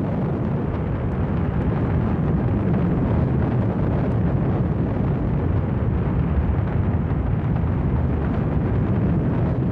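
Steady, deep rumble of a Peacekeeper ICBM's rocket motor during a launch, unbroken and without separate bangs.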